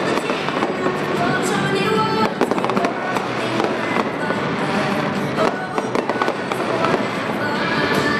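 Fireworks bursting and crackling in quick succession throughout, over loud music.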